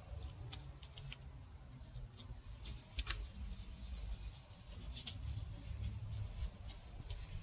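Brake pads and their metal hardware being handled at the caliper: scattered light clicks and taps, with one sharper click about three seconds in, over a low rumble.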